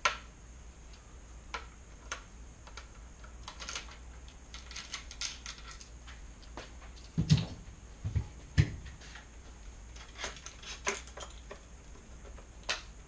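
Hand tools clicking and tapping against metal as the main rocker pivot is taken out of a carbon mountain bike frame: scattered light clicks throughout, with a few heavier knocks a little past the middle.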